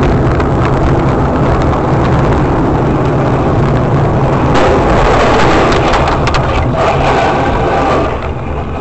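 Loud, steady vehicle noise: an engine running under heavy road noise, with a few sharp knocks or rattles in the second half. It drops somewhat in level near the end.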